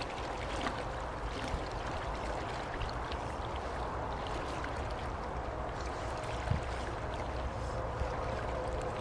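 Steady rush of flowing river water, with a soft thump about six and a half seconds in.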